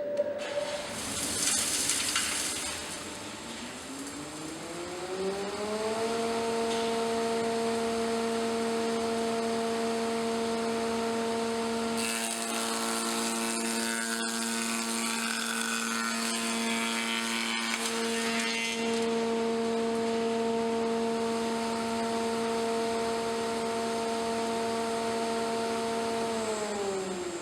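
Spindle moulder starting up: its whine rises over a few seconds, then holds steady at speed. A board is fed through the spinning cutter head from about twelve to eighteen seconds in, adding a rougher cutting noise as the tongue is milled, and near the end the machine is switched off and its pitch falls as it winds down.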